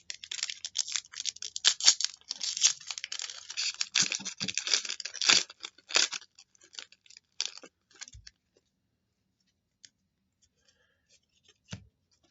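Trading-card pack wrapper being torn open and crinkled: a dense crackle of tearing and rustling for about six seconds, then only a few scattered faint clicks and taps.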